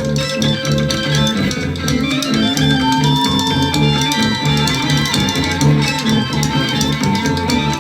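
Instrumental passage of a 1960s psychedelic rock recording: electric guitar, bass and drums keeping a steady beat under a long held lead note that slides up in pitch partway through.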